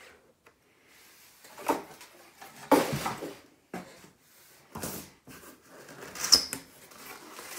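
Cardboard boxes handled on a table: four separate knocks and bumps as they are set down and moved, the loudest near three seconds in, and a short scrape near the end, with light rustling of cardboard between.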